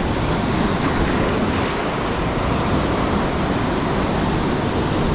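Ocean surf rushing steadily on the shore, with wind buffeting the microphone.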